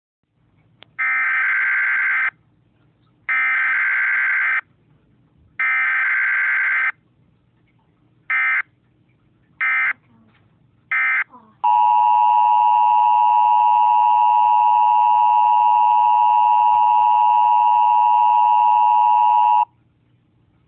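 Emergency Alert System tones: three bursts of the SAME digital header, each about a second and a half, then three shorter data bursts, then the steady two-tone EAS attention signal held for about eight seconds before it cuts off. This is the start of a broadcast tornado warning.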